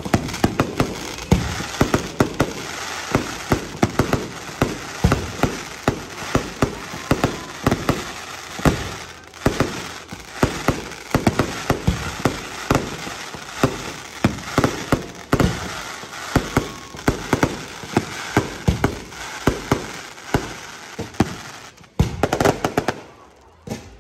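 Fireworks display: a rapid, irregular string of loud shell bursts and bangs with crackling between them. The bangs thin out briefly just before the end.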